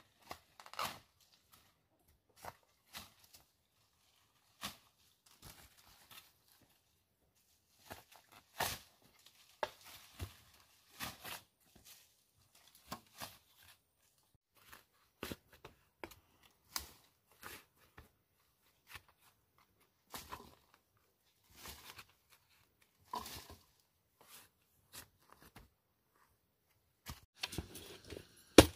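A digging tool's blade striking and scraping into dry earth. The strikes are irregular, a second or two apart, and come louder and closer together near the end.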